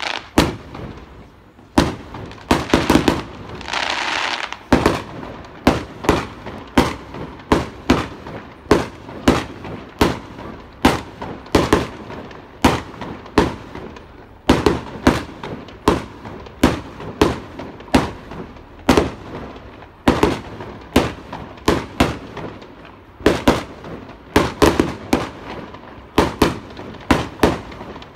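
Fireworks display: aerial shells bursting in quick succession, about two bangs a second, with a brief hiss about four seconds in.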